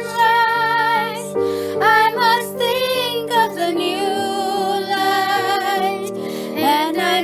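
A young singer sings a slow ballad melody, holding long notes with a wavering vibrato, over a soft plucked-string accompaniment.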